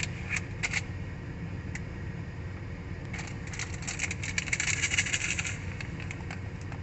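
Plastic candy package crinkling and being torn open, with a few short clicks near the start and a dense spell of crinkling in the middle, over a steady low hum.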